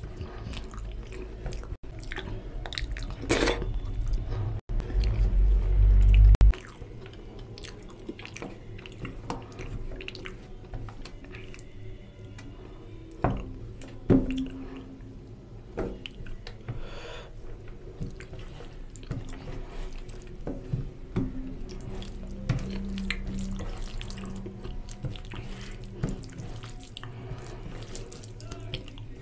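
Fingers mixing basanti pulao into mutton curry on a steel plate: wet squishing with many small clicks and scrapes of fingers against the metal. A loud low rumble runs through the first several seconds and cuts off suddenly.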